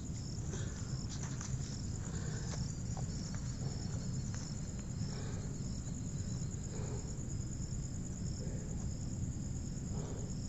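Insects chirping: a high, even pulse repeating about twice a second with a steady high buzz behind it, over a low rumble and a few faint knocks.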